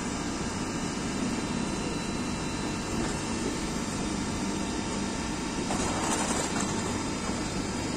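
Light-rail train standing at a station platform: a steady hum and rumble from the train and station. About six seconds in, a brief louder hiss.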